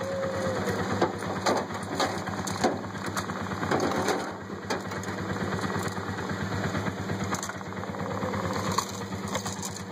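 Vehicle engine idling with a steady, fast pulse, and a couple of faint brief calls near the start and about eight seconds in.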